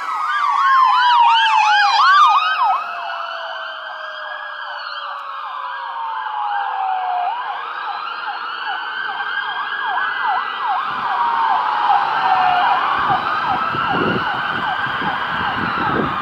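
Sirens of a fire ladder truck and an ambulance responding to a call, several overlapping. They open with a fast yelp of about three sweeps a second, then change to a slow wail that rises and falls every few seconds. A low rumble joins in near the end.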